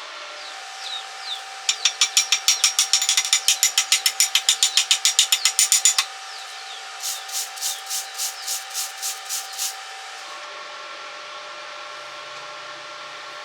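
A hand tool working metal in quick rhythmic scraping strokes, about eight a second for some four seconds, then a slower, softer run of about ten strokes.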